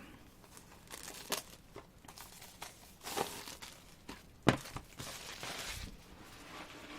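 Plastic album packaging crinkling and tearing as a K-pop CD album is unwrapped and opened, in several rustling bursts, with one sharp click about four and a half seconds in.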